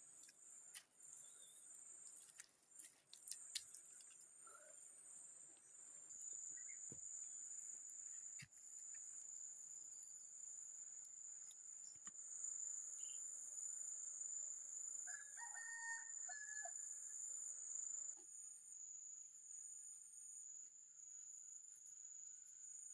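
Insects keep up a steady, high-pitched drone while a rooster crows once, faintly, about fifteen seconds in. A few soft clicks come about three seconds in.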